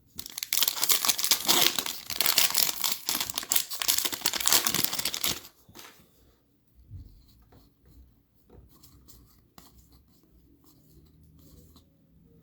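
A foil trading-card pack being torn open and its wrapper crinkled, for about five seconds. After that come only faint rustles and clicks of the cards being handled.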